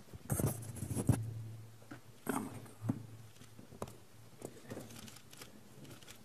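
Commotion close to table microphones: a burst of rustling and knocks in the first second, then scattered sharp knocks and shuffling as people move about the witness table. A low steady hum runs underneath.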